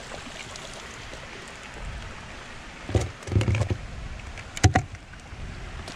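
A large fishing magnet in a metal frame knocks and scrapes against a concrete bank as it is hauled up out of the water on a rope, with a sharp metallic clank a little before the end.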